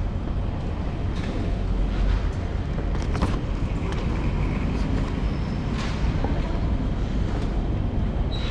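Steady low rumble of a busy terminal hall, with a few faint clicks and knocks from people moving through the queue.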